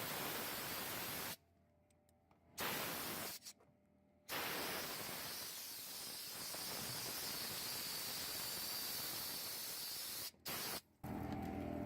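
Steady hiss of compressed air from an air-compressor blowgun, clearing debris off a gate track; it cuts out abruptly twice early on and briefly again near the end.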